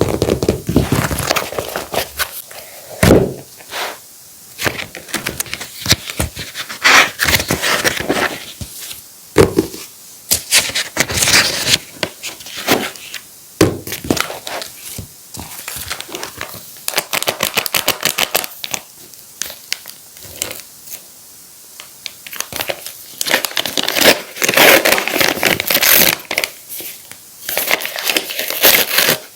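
Paper and plastic packaging crinkling and rustling in the hands, with irregular taps, clicks and short tearing sounds as handmade paper surprise packets and toy plasters are handled and opened.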